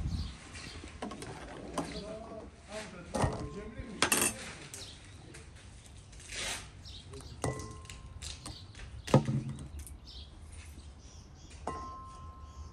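Dishes and kitchen utensils knocking and clattering, with three ringing clinks of metal or glass spread through.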